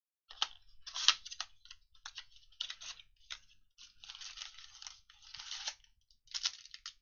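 Trading-card packaging being opened by hand: irregular crinkling, tearing and crackling of plastic wrap and pack foil, in short bursts with a few sharp clicks.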